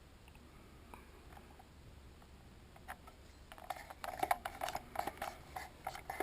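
Tweezers clicking and scraping against a plastic climate-control button and a vinyl decal while the decal is lined up. It is faint at first, then from about three and a half seconds in comes a rapid, irregular string of small clicks and scratches.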